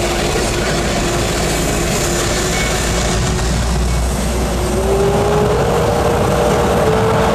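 Lockheed CF-104D Starfighter's J79 turbojet running loud and steady as the jet taxis, with a whine that rises in pitch and grows a little louder about five seconds in.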